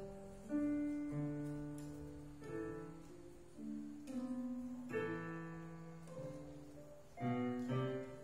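Portable electronic keyboard played with a piano sound: a slow, uneven run of chords and single notes, each struck and left to fade.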